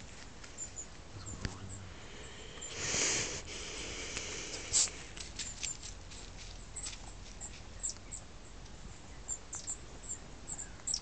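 Scattered crackles and twig snaps in leaf litter and brush underfoot, with a louder rustle about three seconds in and a sharp snap shortly after.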